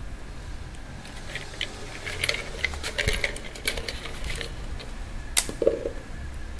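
Light metallic clicks and clinks of a hand tool and bolts on an automatic transmission's aluminium valve body as its bolts are threaded in, with one sharper click near the end.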